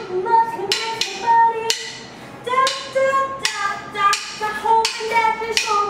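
A woman singing long held notes, sliding between pitches, over drumsticks clicking out a beat, in a stripped-down acoustic band jam.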